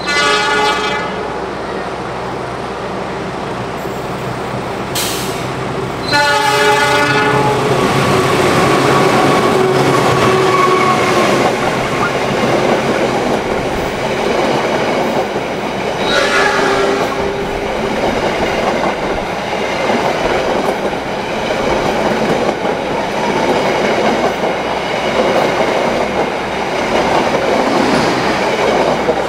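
Argo Wilis express train passing through the station at speed: its locomotive horn sounds at the start, again about six seconds in and again around sixteen seconds in, over the loud steady rush and rattle of the passing locomotive and carriages.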